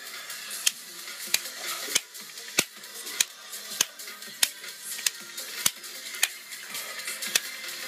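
A leather strap slapping the bare sole of a foot in a steady series of sharp strikes, a little under two a second, about a dozen in all, over quiet background music.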